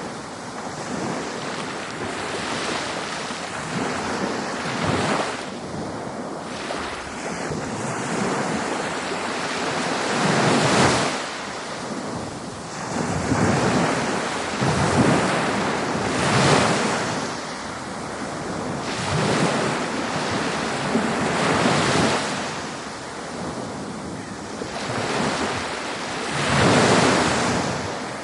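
Ocean waves breaking and washing up a beach, the surf swelling and fading every few seconds.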